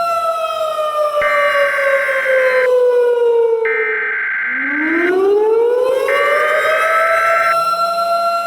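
Civil defense warning siren, a steady tone that winds down in pitch over about four seconds and then winds back up to full pitch. Three blasts of a higher steady tone sound over it, each about a second and a half long with a second's gap between them.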